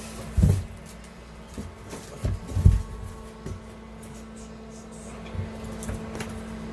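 A few dull, low thumps and knocks from work on the trailer's plywood floor, the loudest about two and a half seconds in, over a steady low hum.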